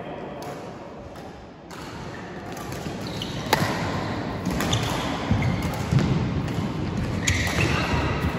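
Badminton rally: sharp racket strikes on the shuttlecock, four of them about one to one and a half seconds apart in the second half, over low thuds of footwork.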